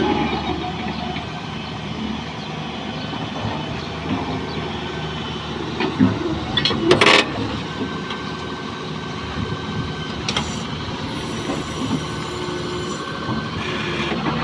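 Excavator's diesel engine running steadily while it works, with scattered metal knocks and a loud scraping crunch about seven seconds in.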